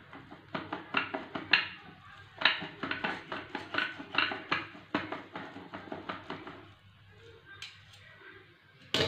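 Steel knife sawing through a folded omelet on a plate with a fork holding it: quick, irregular scraping and clicking strokes of the blade against the plate, which die away about two-thirds of the way through. A single sharp clink near the end.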